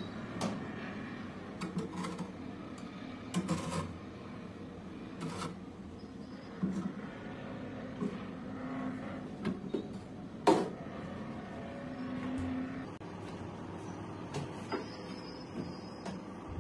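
Plastic cups clicking and knocking as they are lifted off a steel tray and set into a refrigerator's freezer compartment, with clatters from the fridge's shelves and plastic fittings. Scattered irregular knocks, one sharper knock about ten and a half seconds in.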